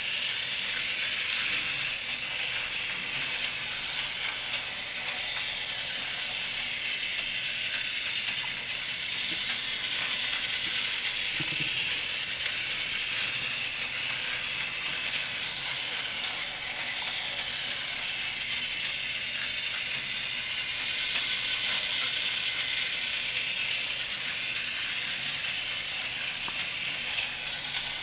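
Plarail Taiwan High Speed Rail 700T toy train running on plastic track: a steady whirring, rattling drone from its small electric motor and gearbox and its wheels on the track. It swells and fades a little as the train goes round the loop.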